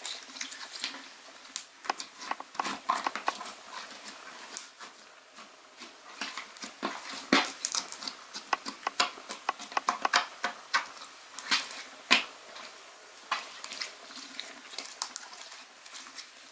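Hands squishing and poking slime, making an irregular run of short clicks and pops.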